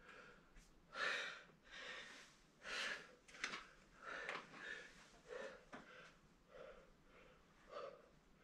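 A person breathing hard: about ten quick, faint breaths, roughly one a second.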